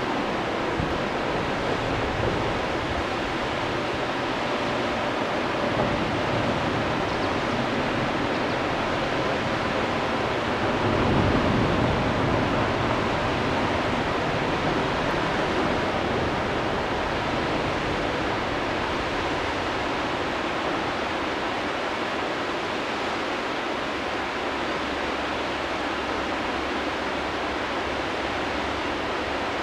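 Whitewater rapids rushing in a steady, even wash of noise, with a brief low rumble about eleven seconds in.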